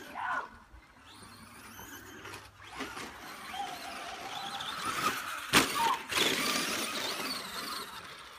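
RC cars racing: a whine that rises and falls in pitch, with a sharp knock about five and a half seconds in.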